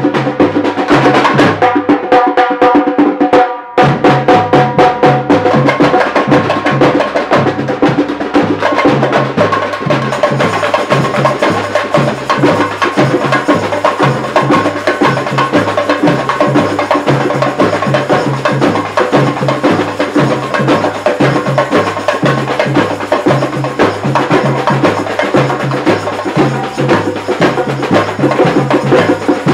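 Samba-style percussion ensemble playing a driving, even groove: large metal surdo bass drums carry a steady low beat under sharp stick strokes and small frame-drum (tamborim) hits. The playing breaks off for a moment about four seconds in and then carries straight on.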